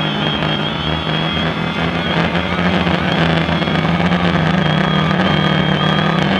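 DJI Phantom quadcopter's motors and propellers running in flight: a steady loud buzz with a high whine that wavers slightly in pitch, picked up by the camera on the drone.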